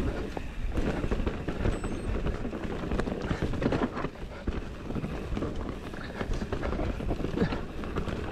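Mountain bike riding fast down a dirt forest trail: tyre noise on dirt and roots with frequent irregular rattles and knocks from the bike as it bounces over the rough ground.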